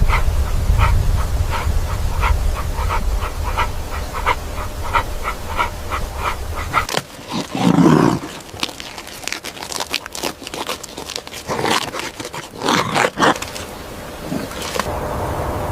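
A canine animal: a run of even pulses, about three a second, over a low rumble for the first seven seconds, then one pitched cry about eight seconds in. Scattered sharp knocks follow.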